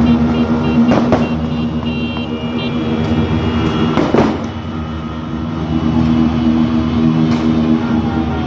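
Many motorcycle horns blaring together in a steady, held chorus over the noise of motorcycles. Two sharp bangs cut through, about one and four seconds in.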